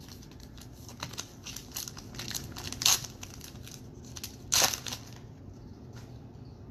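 Trading card packs and cards being handled: wrapper and cards crinkling and rustling in a run of short clicks, with two louder crinkles about three and four and a half seconds in.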